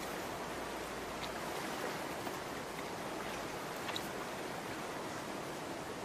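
Steady rush of running stream water, with two faint ticks, about a second in and about four seconds in.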